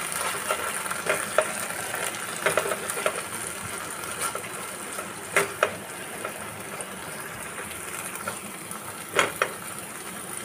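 Mustard and poppy seed paste frying in hot mustard oil in a nonstick kadai, a steady sizzle as it is stirred and spread with a silicone spatula. Scattered sharp clicks run through it, a few louder pairs about halfway and near the end.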